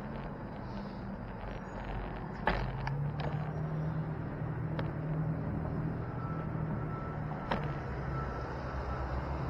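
Street traffic: a motor vehicle's engine running with a steady low hum, joined by a few sharp clicks.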